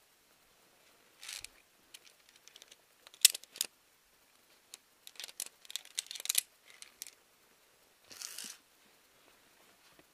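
Via ferrata carabiners and lanyard clinking and clicking against the steel cable and rock as the climber moves up, in an uneven scatter of sharp clicks, loudest about three seconds in and thickest around five to six seconds. Two short hissing noises, about a second in and near the end.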